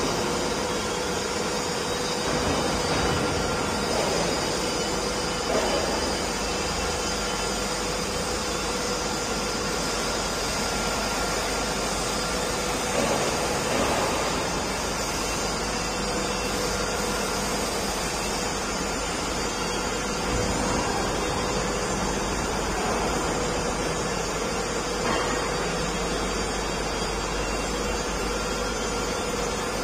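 Steady machine hum, a continuous noisy drone with a faint steady tone running through it, and a few soft bumps.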